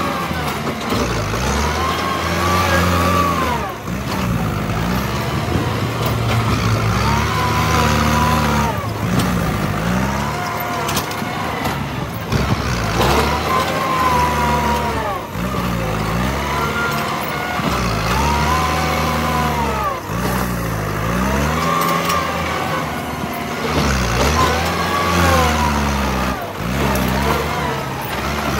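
Kubota tractor's diesel engine working as the tractor pushes soil with its front blade, its revs rising and falling back again every two to four seconds.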